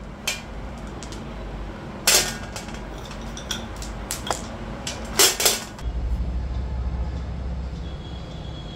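Hard objects clinking and knocking as small decor items are handled and set down: a few separate sharp clacks, the loudest about two and five seconds in. A low steady hum runs underneath and gets louder from about six seconds in.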